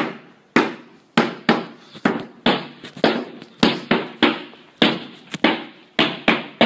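Child's toy snare drum beaten unevenly with a wooden drumstick: sharp strikes at roughly three a second, each ringing briefly.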